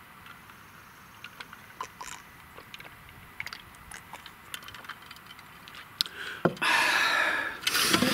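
A glass of iced tea being handled and spilled: scattered small clicks and clinks, then a loud splashing rush lasting about a second near the end.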